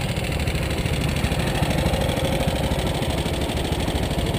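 Honda ATC three-wheeler engines idling steadily.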